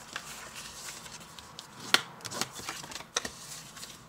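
Scored card stock being burnished with a bone folder: paper rubbing and rustling, with a sharp tap about two seconds in and another about a second later.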